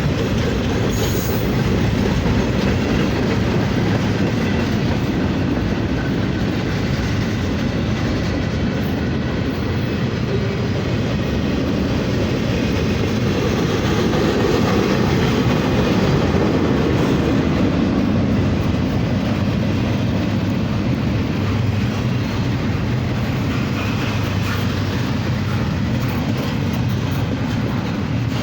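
BNSF manifest freight train rolling past at close range: a steady, continuous noise of steel wheels on rail, heaviest in the low end.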